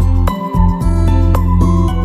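Background music: gentle new-age style music with plucked guitar-like notes and a steady low bass.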